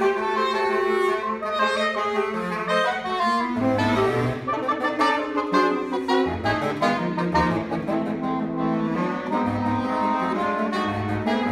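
A saxophone quartet of soprano, alto, tenor and baritone saxophones plays a contemporary concert piece live, the four parts moving together in close harmony. Near the end a low bass note repeats about twice a second.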